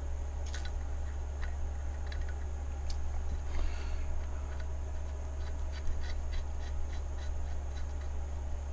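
Steady low hum with faint, scattered light clicks and taps from small parts being handled; the clicks come closer together in the second half.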